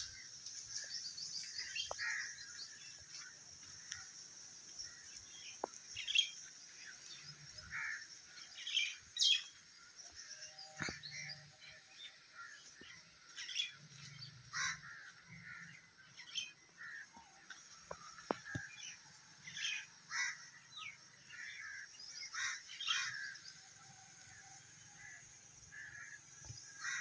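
Birds chirping: many short, scattered calls, one after another.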